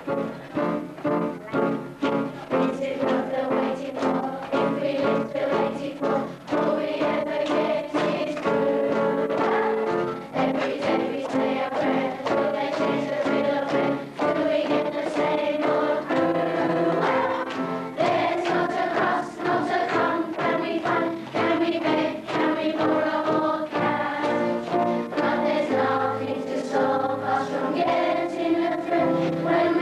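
A chorus of children's voices singing a show tune with instrumental accompaniment and a steady beat.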